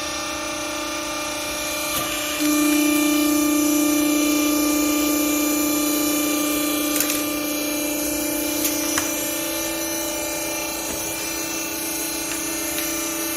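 Hydraulic baler for used clothing running: a steady, even machine whine from its pump and motor, stepping up louder about two and a half seconds in, with a few light clicks.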